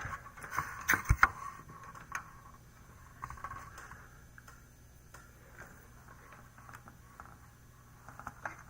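Light clicks and taps of hands working on a computer motherboard around its coin-cell CMOS battery, loudest in a quick cluster of knocks about a second in, over a faint steady low hum.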